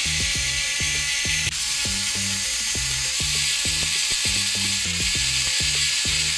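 Electric precision screwdriver running steadily as it backs out the T9 Torx screws holding the laptop's display hinges. It gets a little brighter about a second and a half in. Background music with a steady beat plays underneath.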